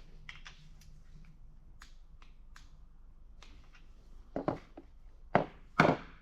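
Metal tools and engine parts clinking as they are handled: a run of light clicks and taps, then three louder clanks in the last two seconds.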